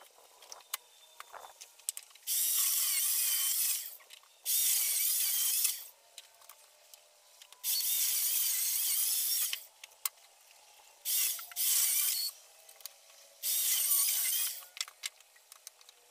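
A saw cutting firewood in about six separate bursts of one to two seconds each, a loud high rasp with a wavering tone, with short pauses between the cuts.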